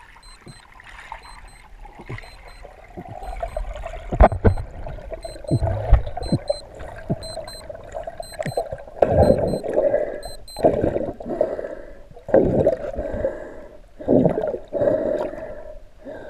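Muffled underwater water noise heard through a camera housing as a freediver rises toward the surface: scattered knocks, then surges of water noise about every one to two seconds in the second half.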